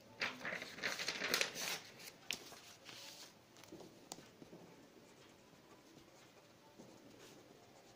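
Sheets of paper being handled and rustled for about three seconds, then a ballpoint pen scratching faintly across paper as a heading is written.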